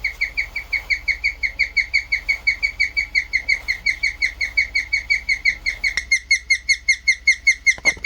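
Guinea pig chirping: a rapid, unbroken run of short, high, bird-like chirps, about five or six a second, a little louder from about six seconds in.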